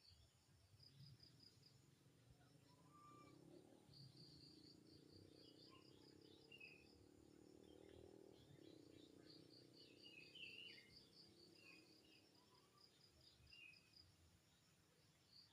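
Faint insects chirping in rapid high-pitched trills that start and stop every few seconds, with scattered short chirps in between and a faint low rumble swelling up in the middle.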